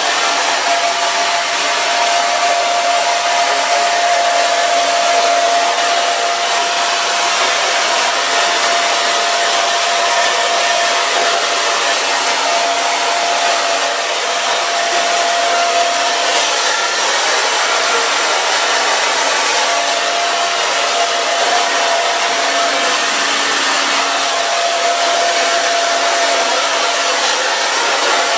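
Handheld salon hair dryer running steadily on wet curly hair: a rushing blow of air with a steady high whine over it.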